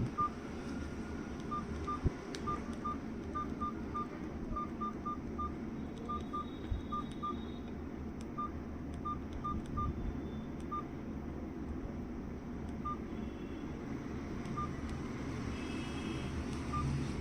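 Nokia keypad phone's key beeps: a quick, irregular run of short, high single-pitch beeps as the buttons are pressed one after another, thinning out to a few scattered beeps in the later part, which is a keypad check on the freshly repaired phone.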